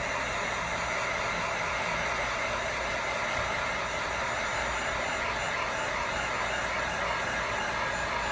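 Steady blowing noise from a fan or blower, even and unchanging throughout.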